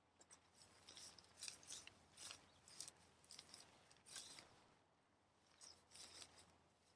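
Nylon tent fabric rustling and swishing as it is pulled and smoothed by hand, in a string of short, irregular rustles.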